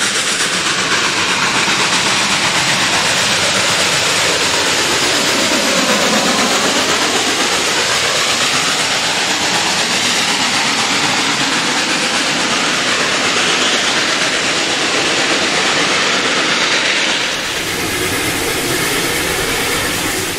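Reading & Northern 2102, a 4-8-4 Northern steam locomotive, working very hard at full throttle, its exhaust at the stack roaring as it passes close by with its train. Near the end the sound shifts to the engine heard from inside its cab.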